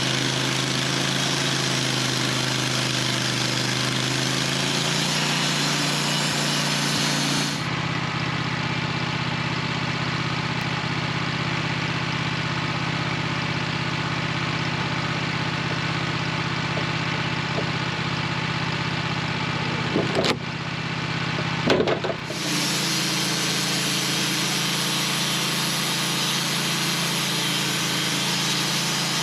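Sawmill engine running steadily while sawing a slab off a large honey locust log. About a third of the way in the sound switches abruptly to a lower, heavier running, with two short knocks near the end of that stretch, then it switches back to the first steady running.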